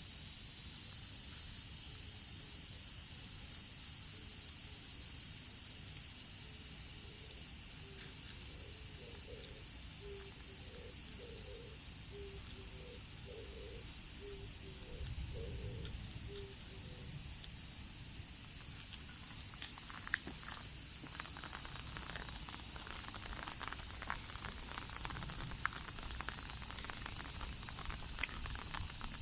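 Steady high hiss of falling rain, with a high steady tone over it that gets louder about two-thirds of the way through. Small drip ticks join in near the end.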